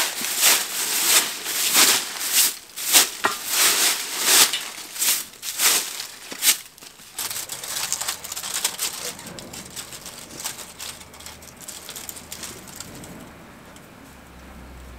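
Straw broom sweeping dry fallen leaves across concrete steps: brisk swishing strokes about twice a second, stopping about seven seconds in, after which only a quieter rustling remains.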